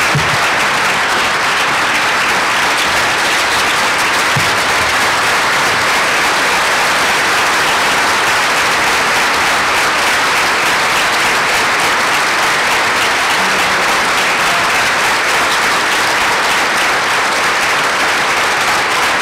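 A large crowd applauding in a standing ovation: dense, steady clapping that holds at an even, loud level.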